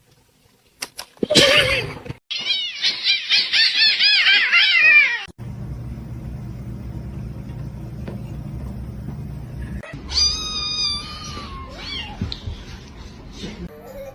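Cats meowing and yowling: a short call, then a warbling yowl lasting about three seconds, and after a break a single meow about ten seconds in, over a low steady hum.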